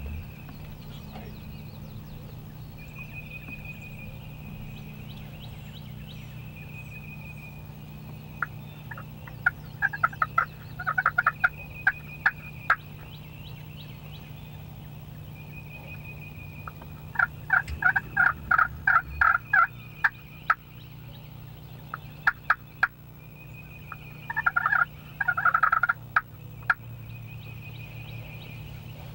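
Wild turkey gobblers gobbling three times, at about ten, eighteen and twenty-five seconds in, each gobble a rapid rattling burst.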